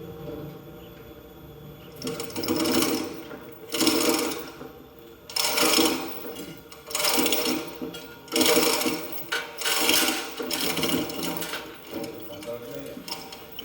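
Hand-operated tool working in repeated bursts of rapid mechanical clatter, each about half a second to a second long and coming roughly every second and a half, while an engine is being fitted.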